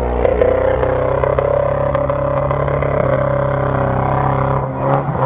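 UAZ-469 off-road 4x4's engine running steadily as the truck drives through mud, with light knocks and clatter scattered over it.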